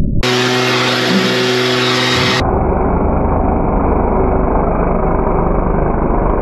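A motor vehicle's engine running steadily. About two seconds in, the sound changes abruptly to a duller, noisier run.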